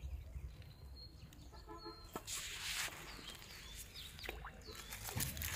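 Rural outdoor ambience: a chicken clucks briefly, small birds chirp now and then, and a short rush of rustling noise comes about two seconds in.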